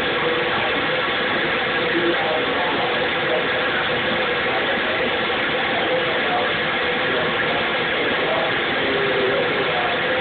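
Steady, unchanging machine noise, like a motor running, with a faint murmur mixed in.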